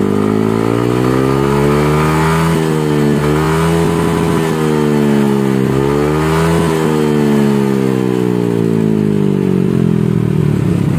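Yamaha NMAX 155's single-cylinder scooter engine revving through an aftermarket SKR racing exhaust. It climbs over the first couple of seconds, dips and climbs again several times in quick blips, then winds slowly back down. The exhaust note is not very blaring.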